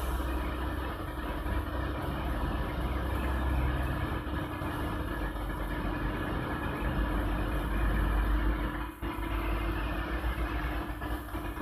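Hydraulic lifting system of a vacuum emulsifying mixer running with a steady hum as the tank lid is lowered, dipping briefly about nine seconds in.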